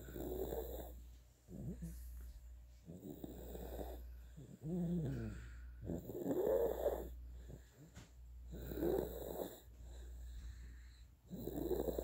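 Baby snoring in sleep, one rough, wavering snore with each breath, about every two to three seconds.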